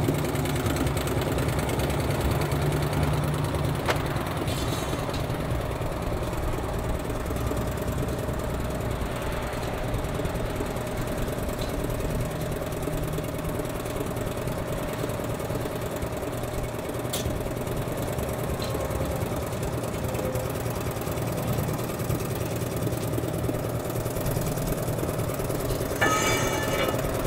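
A steady engine-like mechanical running hum, briefly louder about a second before the end.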